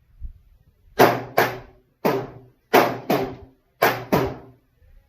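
Pistol fire at a range: seven sharp shots in about three seconds, several in quick pairs, each with a short echo.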